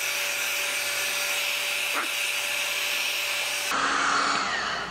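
Electric heat gun running steadily, blowing onto the bottom of a stainless steel pan to warm it: a steady hiss of air with a steady motor hum. About four seconds in the sound changes abruptly to a duller, lower hiss.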